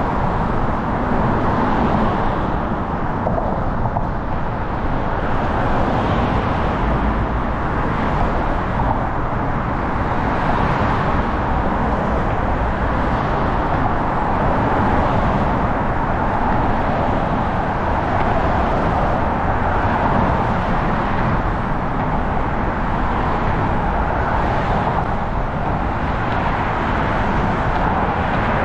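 Steady, loud roar of road traffic, swelling slightly every couple of seconds.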